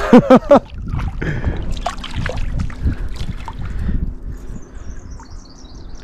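Shallow water splashing and sloshing in irregular bursts as a hooked whiting thrashes at the surface and is grabbed by hand, after a short loud exclamation at the start. A bird twitters faintly near the end.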